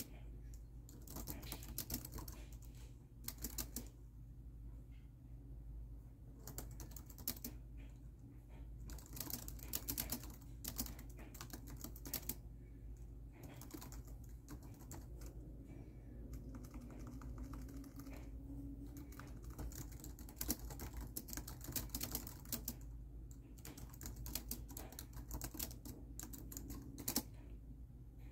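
Typing on a laptop keyboard: bursts of quick key clicks broken by short pauses.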